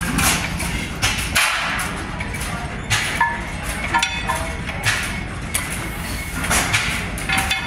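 Old hit-and-miss stationary gas engines running, a steady low chugging broken by sharp exhaust pops at uneven spacing, about one a second, as the engines fire and coast. A few short metallic clinks ring out among them.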